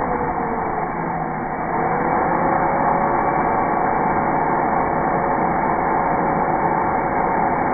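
Handheld power drill running with its bit in a thin plywood drawer-rail strip, a steady motor whine. Its pitch dips about a second in, then picks up again and holds steady.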